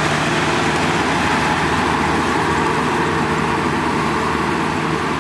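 Kubota tractor's diesel engine running steadily under load as it drives a rotary tiller through flooded paddy mud.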